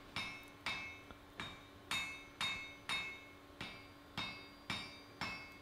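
Hand hammer striking white-hot wrought iron on an anvil, forge-welding a separately made axe eye to the blade body: a steady run of blows about two a second, each with a short metallic ring.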